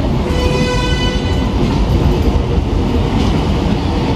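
Sri Lanka Railways passenger train pulling out of a station, heard from an open coach window: a loud, steady low rumble of the wheels on the track. Shortly after the start a brief pitched tone with several overtones sounds and fades out by about two seconds in.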